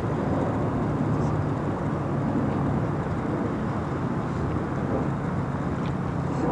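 De Havilland Canada DHC-2 Beaver floatplane climbing out just after take-off, its engine and propeller making a steady drone.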